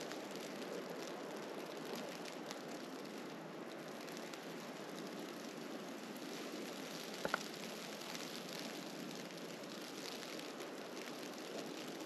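Steady crackling hiss of a snowstorm, with wind and snow striking surfaces close by. A single sharp click comes about seven seconds in.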